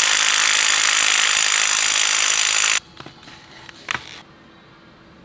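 Cordless power driver running steadily on the centre bolt of a small-block Chevy 350's crankshaft pulley, stopping abruptly a little under three seconds in. A few light clicks and rustles of plastic packaging follow.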